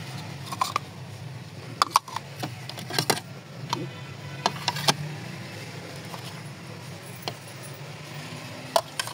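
Dishes being handled, giving sharp clinks and knocks, about a dozen, mostly in the first five seconds and twice more near the end, over a steady low hum.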